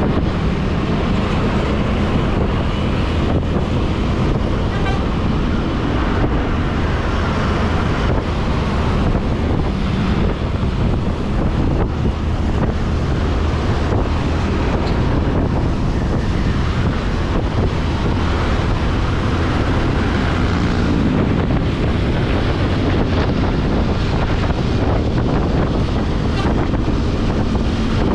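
Moving intercity bus: steady road and engine noise with wind buffeting the microphone.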